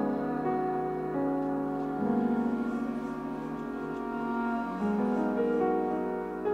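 Slow, sustained piano chords played live on a digital stage piano, the harmony shifting every second or two.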